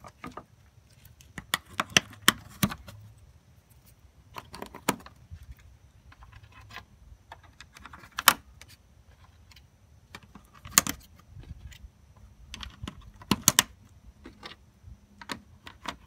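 Plastic push-in clips being pressed by hand into the grille and upper panel of a Subaru Impreza: an irregular run of sharp plastic clicks and small clatters, with louder snaps about two seconds in, near eight seconds, near eleven seconds and twice near thirteen seconds.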